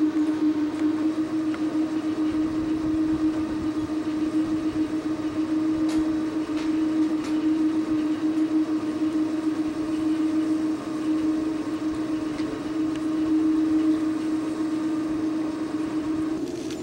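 Steady droning hum over a rolling rumble, heard from inside a moving aerial cable car cabin as it runs along its haul cables.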